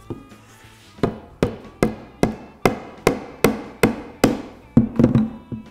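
Steady knocking on wood, about two or three strikes a second, starting about a second in, over faint background music.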